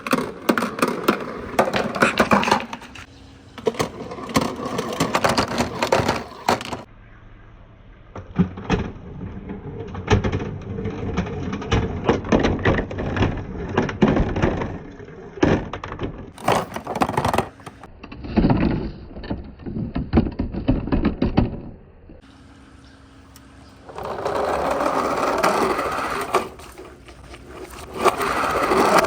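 Marbles and hard acrylic balls rolling and clattering down a wooden marble run, with many sharp clicks as they hit the track and each other. Near the end it turns into a steadier continuous rolling rush.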